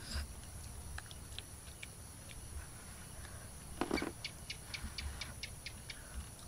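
Evening outdoor ambience: a steady high-pitched insect drone with scattered faint clicks. A brief louder rustle comes about four seconds in, followed by a rapid run of about eight short chirps, roughly four a second.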